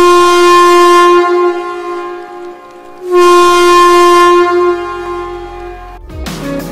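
Train horn sounded by a ceremonial siren lever, blown twice: two long, loud, steady blasts of about three seconds each at the same pitch, marking the official opening of the rail line.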